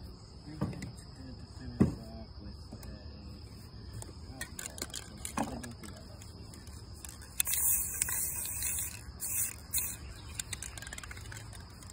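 Aerosol spray paint can hissing in one burst of about a second and a half, then two short puffs, over a steady high trill of crickets. A sharp knock comes about two seconds in.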